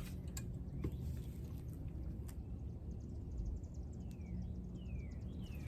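Bird calls: a quick run of faint high ticks, then three short descending chirps close together near the end, over a steady low background rumble.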